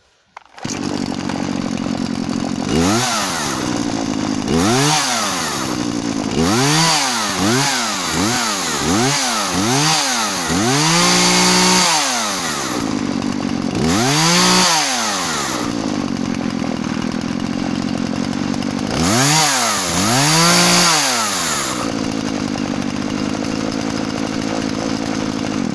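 Husqvarna e-series two-stroke chainsaw engine idling and being revved repeatedly. Each blip of the throttle rises and falls in pitch: two single revs, then a quick run of about five short blips, a longer rev, and a few more revs later on, settling back to idle between them.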